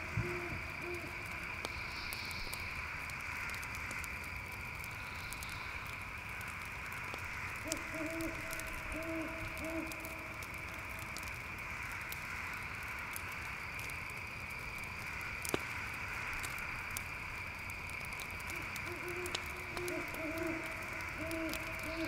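An owl hooting in series of several low hoots: one series ending just at the start, another about eight seconds in and another about nineteen seconds in. Under it runs a steady high chorus of crickets.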